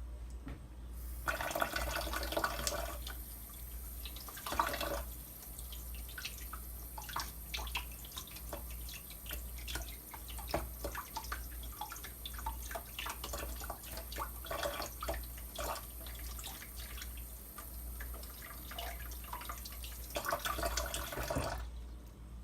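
Water running from a tap or hose and splashing as freshly pulled carrots are rinsed under it. The water starts about a second in and cuts off shortly before the end.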